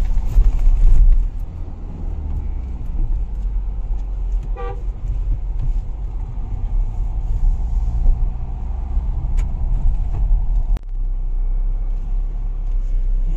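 Mahindra Scorpio-N heard from inside the cabin while driving, a steady low engine and road rumble. A short horn toot sounds about four and a half seconds in.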